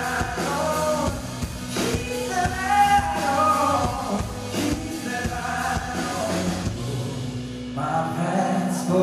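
Live band music with a male lead vocal, recorded from the audience in a concert hall. The singer holds long, sliding sung notes over guitar and drums, and the bass drops away near the end.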